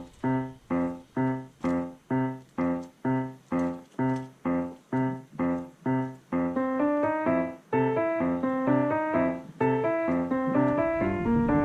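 Background music on a piano-like keyboard: one chord struck about twice a second, then a busier melody of moving notes from about six seconds in.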